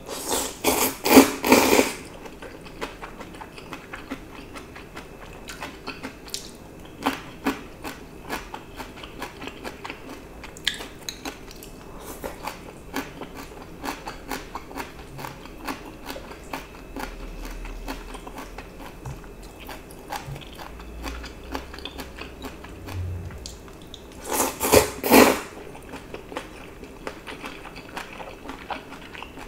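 A person slurping thin wheat noodles twice in close-up, once at the start and again about 25 seconds in, with wet chewing and small mouth clicks in between.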